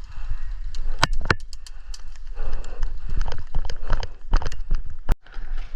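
Footsteps of a player moving quickly over hard ground, an irregular patter of sharp clicks about three a second, with two louder snaps about a second in, over a low rumble of handling and wind on the microphone.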